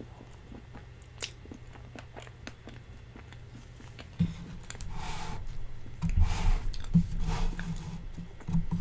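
Close-miked chewing of dense cheesecake: soft, wet mouth sounds and small clicks, growing louder from about four seconds in.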